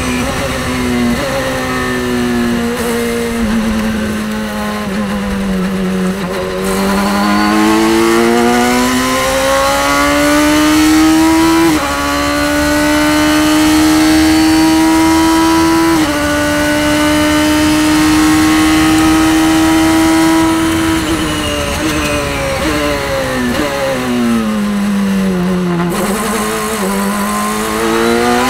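Radical race car engine heard from the cockpit at racing speed, revving high with a sequential gearbox. It drops in pitch in steps at first, then pulls hard with a rising pitch and shifts twice around the middle. It holds near steady, then falls away in pitch under braking and downshifts, and rises again as it accelerates out near the end.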